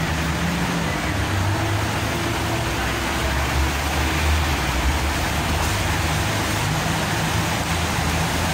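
Steady rushing background noise with a low rumble underneath, with no sudden events.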